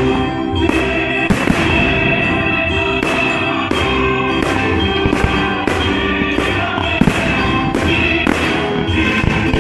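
Firework shells bursting over orchestral classical music, about a dozen sharp bangs at a rate of roughly one every half second to second.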